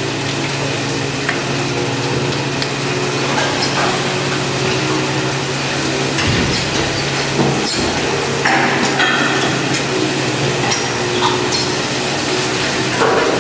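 Rotary milking parlour machinery running: a steady hiss from the vacuum milking units over a constant low hum, with a couple of sharp metallic knocks in the middle.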